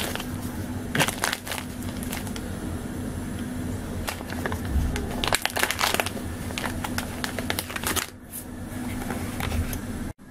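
Crinkling of a thin plastic food packet being handled and folded over for a bag clip, in irregular bursts, over a low steady hum.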